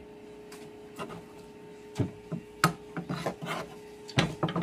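Kitchen knife slicing banana blossom on a chopping board, the blade hitting the board in sharp taps, about one a second at first, then several in quick runs. Near the end the knife scrapes the cut slices off the board.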